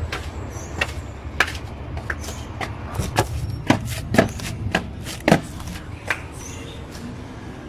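A series of about a dozen sharp, irregularly spaced knocks over a steady low rumble; the knocks stop about six seconds in.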